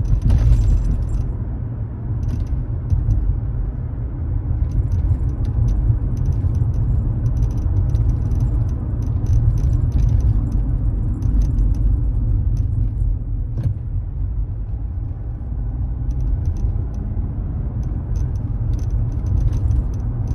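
Mazda CX-5 (KF2P) creaking, a gishi-gishi from around the left front pillar and dashboard, heard inside the cabin while driving. The creaks come as short, irregular ticks over a steady low road rumble. The owner wonders whether it is a separated spot weld.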